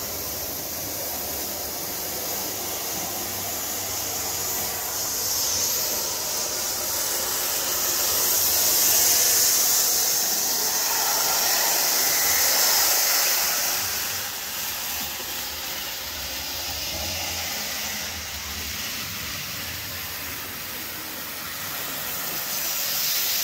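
Model train running on its track: a steady high-pitched whirring hiss from the small locomotive's motor and wheels on the rails. It swells when the train passes close, from about five to fourteen seconds in, fades, and swells again near the end.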